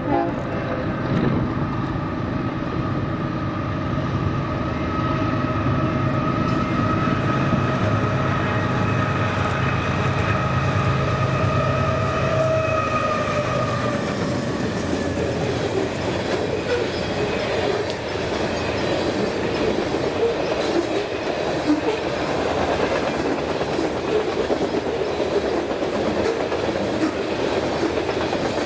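BNSF diesel freight train passing close by: the locomotives' steady engine hum fades out over roughly the first dozen seconds, then the cars roll past with wheels clicking over the rail joints.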